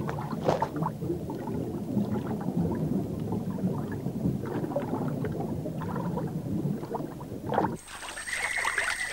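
Water gurgling and bubbling with scattered splashes and clicks, heard as a swimmer moving underwater. Near the end it switches to surface splashing from a canoe paddle and swimmers, with a steady high thin tone.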